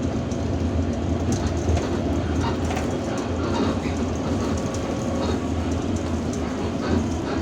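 Irisbus Citelis 12M city bus driving, heard from inside the cabin: a steady low engine and road drone with light rattles and clicks from the bodywork.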